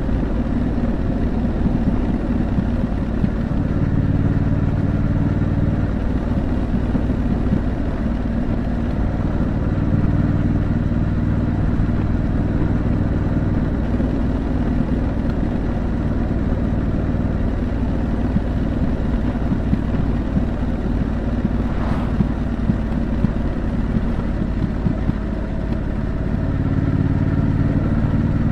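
Triumph Scrambler 900's parallel-twin engine through its stock exhaust, under way with a low rumble of wind and road beneath it; the engine note holds steady for stretches and shifts pitch between them. A single sharp click sounds about 22 seconds in.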